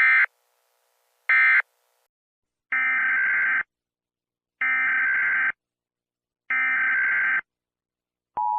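Emergency Alert System (SAME) digital data bursts, harsh warbling buzzes: two short ones, then three longer ones about two seconds apart. A steady alert tone starts near the end.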